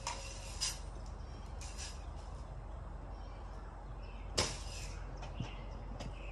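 Daisy Red Ryder lever-action BB gun being shot: short sharp pops near the start and a louder one about four and a half seconds in, with a few fainter clicks after it.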